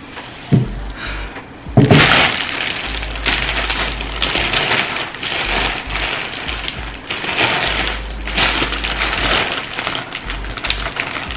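A dull knock, then a sharp clack about two seconds in, followed by steady crinkling and crackling of handling noise, as with takeout food and its packaging being handled.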